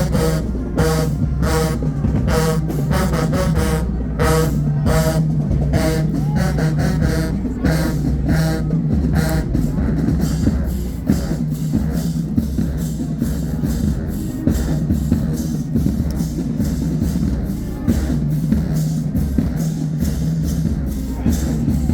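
Marching band playing: brass chords punched out over a driving drum beat for about the first ten seconds, after which the horns fall back and the drums carry on.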